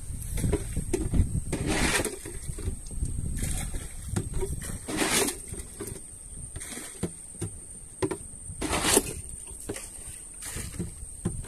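A small fishing dinghy being rowed: a short splash of the oar in the water about every two seconds, over a steady low rumble.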